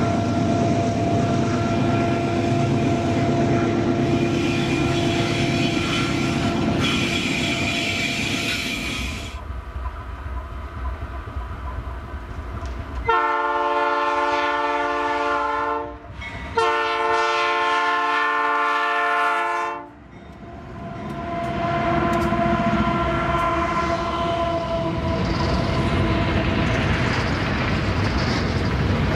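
Loaded grain hopper wagons of a freight train rolling past with a steady rumble and clatter of wheels on rail. Later a diesel freight locomotive sounds its air horn in two long blasts of about three seconds each, then passes with its hopper wagons rumbling by.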